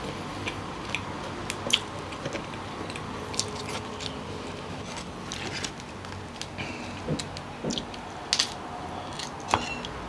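The spiny shell of cooked king crab legs cracking and crunching as it is broken apart by hand, in irregular sharp clicks, with chewing in between.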